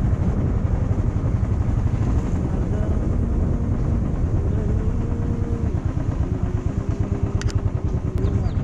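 Motorcycle on the move, its engine note stepping up and down in pitch, under a heavy rumble of wind on the microphone.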